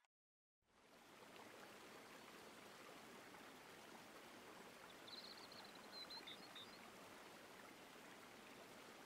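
Faint, steady outdoor hiss, with a bird's short run of high chirps about five seconds in.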